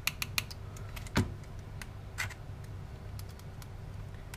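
Multimeter test probes clicking and scraping against a car wiper motor's metal case and terminals during a continuity check: several quick ticks at the start, a heavier knock about a second in, then a few lighter clicks. No continuity beep sounds, a sign that the motor's ground is now isolated from its case.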